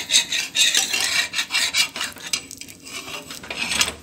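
A spatula scraping and rasping against a tawa in quick, irregular strokes as it works under the edge of a cooked dosa to loosen it for flipping. The scraping stops near the end.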